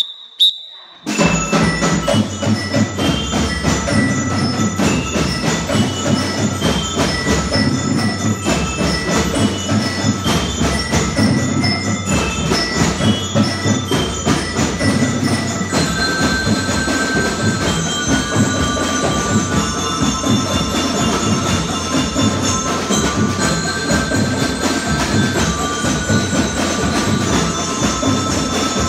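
Drum and xylophone band playing: drums keep a steady marching beat under a bright melody of ringing mallet notes on xylophones. The music starts about a second in, after a few short high tones, and a busier, higher melody comes in about halfway through.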